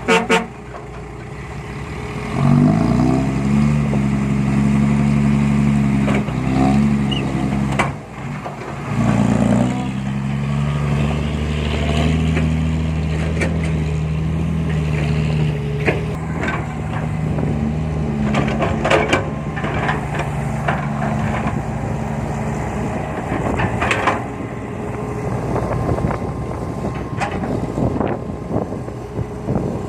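Heavy diesel engine revving up about two seconds in, dropping briefly, revving again near nine seconds, then running steadily under load, with scattered metallic knocks.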